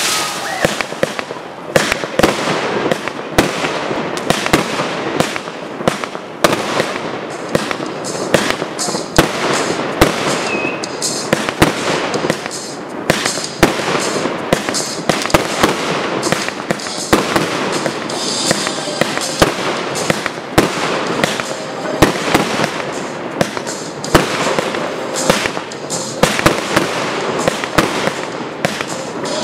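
Fireworks display: a dense, rapid string of sharp bangs and crackling from aerial shells, comets and crackling fountains, with many loud reports close together.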